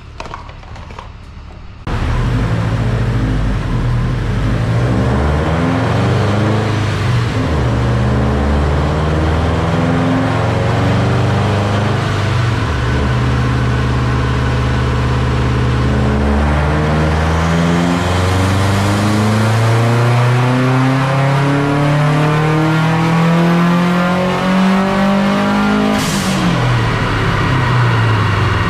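Subaru WRX STI's turbocharged 2.5-litre flat-four running under load on a chassis dyno, revs rising and falling. Then a long steady climb in rpm of about ten seconds, a wide-open dyno pull, ending near the end in a brief sharp hiss from the blow-off valve as the revs drop.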